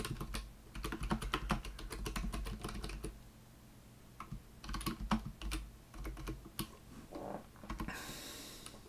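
Computer keyboard typing in quick runs of key clicks, with a short pause a little past three seconds in, then a brief hiss near the end.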